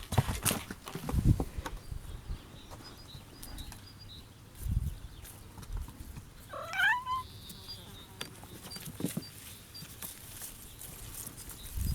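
A kitten meows once, a short rising and falling call about halfway through, among scattered soft thumps and knocks.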